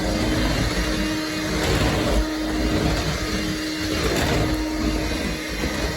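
Oreck Quickstick cordless stick vacuum running steadily, its motor giving a constant hum with a whoosh of suction.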